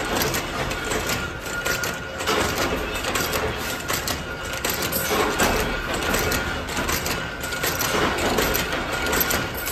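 Spoon-making machinery running, with a continuous metallic clatter and clinking of steel pieces and a faint steady whine underneath.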